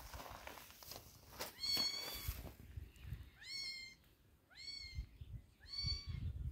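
Kitten meowing four times: short, high-pitched mews roughly a second apart.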